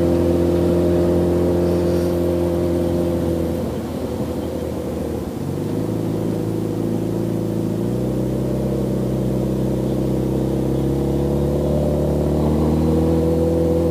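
Superbike engine running at low, steady revs while riding slowly. The revs ease off about four seconds in, then pick up again in two steps.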